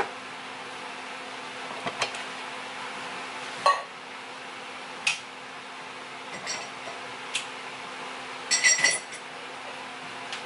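Kitchen clatter: scattered knocks and clinks of dishes and glassware being handled on a counter, about one every second or two, with a short burst of ringing clinks near the end, over a steady low hum.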